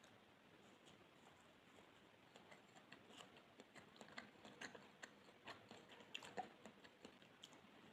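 Close-miked chewing of soft pandan sponge cake: faint, quick, irregular wet mouth clicks that start about two seconds in and come thicker toward the end.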